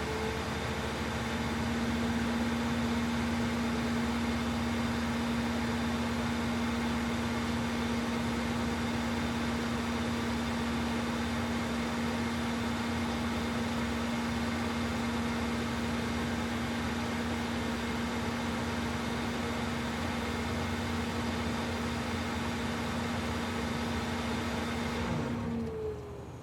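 Police car engine idling steadily with a constant hum. Near the end the engine is switched off and the sound dies away with a falling whine.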